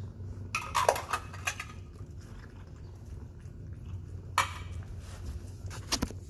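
A cat eating wet cat food from a dish: a quick run of sharp clicks and chewing sounds in the first second and a half, quieter eating after, and two more clinks against the dish near the end.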